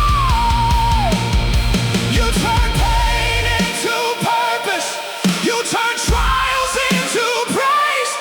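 Loud rock-style music with a lead melody line that slides and bends in pitch. The heavy bass and drums drop out about three and a half seconds in, leaving the lead and upper parts for most of the rest.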